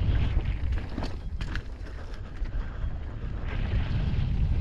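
Electric mountain bike ridden up a dirt trail: a steady low rumble with wind buffeting the microphone, and a few sharp knocks about a second in.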